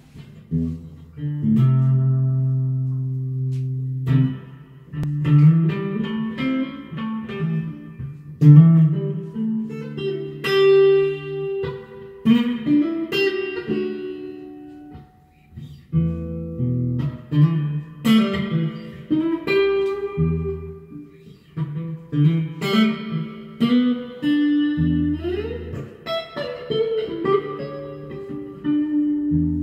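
Reverend Buckshot electric guitar played through a fuzz pedal in a loose jam: held low notes and chords, with a short gap about halfway and a note sliding up in pitch near the end.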